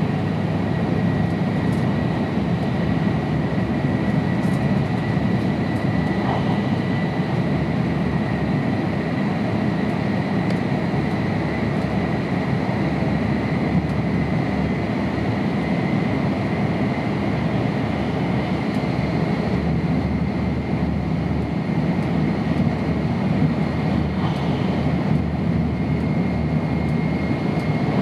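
Tohoku Shinkansen train running at high speed, heard inside the passenger car: a steady dense rumble with a thin high whine that creeps slightly up in pitch toward the end.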